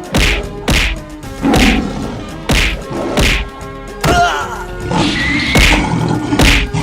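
Fight sound effects: a run of about eight heavy whacks and thuds, one every half second to a second, over background music.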